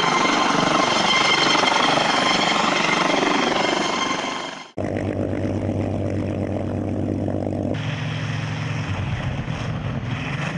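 Helicopter in a dusty landing: a loud rush of rotor noise with a steady turbine whine. After about four and a half seconds it cuts off suddenly to a propeller fighter plane's piston engine running with a steady low drone, whose sound shifts about three seconds later.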